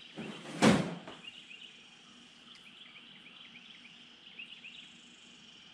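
Week-old baby chicks peeping steadily in a brooder tub, many short high peeps a second, with a single loud thump under a second in.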